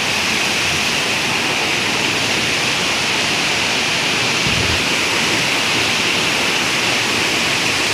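Rocky mountain stream rushing over boulders in small white-water cascades, a steady hiss of moving water.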